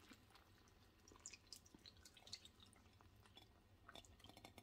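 Faint dripping and soft splashing of sweetened evaporated milk poured in a thin stream onto torn pieces of stale bread in a glass bowl, with scattered small ticks.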